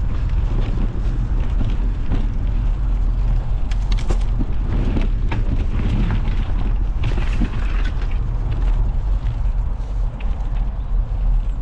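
Wind buffeting the microphone over the rolling of a mountain bike's knobby tyres on a gravel and dirt trail, with scattered clicks and rattles that are busiest in the middle.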